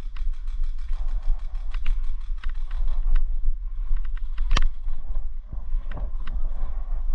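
A quick run of sharp clicks in the first second and a half, then scattered single clicks and one louder snap about four and a half seconds in, over a steady low rumble.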